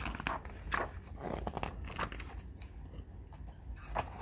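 Paper pages of a picture book rustling and crinkling as they are handled and a page is turned.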